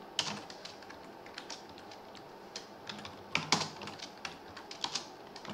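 Computer keyboard keys clicking as someone types in short, irregular runs with pauses between them.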